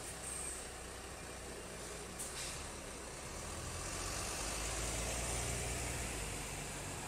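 City bus's diesel engine running as the bus pulls away, the engine growing louder from about three and a half seconds in. A brief hiss of air comes about two seconds in.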